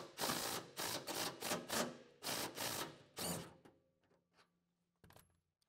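Cordless DeWalt impact driver loosening a hinge bolt: a run of short, loud hammering bursts for about three seconds, then a quieter steady motor whir that stops about five seconds in.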